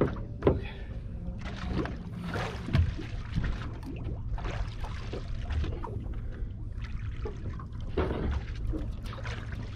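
Water sloshing and splashing against the side of a small fibreglass boat as a hooked tuna is brought alongside, in swells about a second long over a low steady rumble. A few sharp knocks, the loudest about half a second in and another near three seconds.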